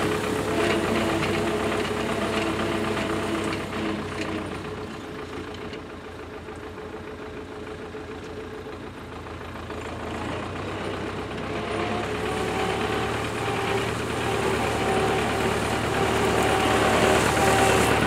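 MTZ-82 tractor's four-cylinder diesel engine running as the tractor drives away over a pile of dry bean plants, growing fainter, then reversing back and growing louder again from about ten seconds in.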